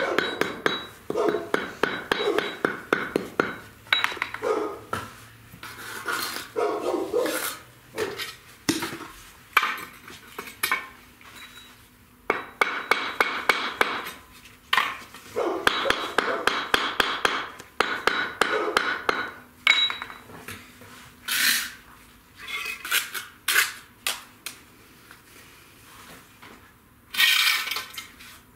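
Bricklaying work: a steel trowel scraping and clinking through mortar in runs of rapid strokes, broken by pauses and single sharp taps on brick.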